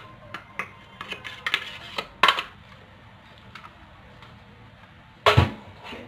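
Blender jug knocked and tapped against the rim of a plastic mixing bowl to empty out blended lemon: a string of sharp clicks and knocks, the loudest about two seconds in. A heavier knock follows just after five seconds in.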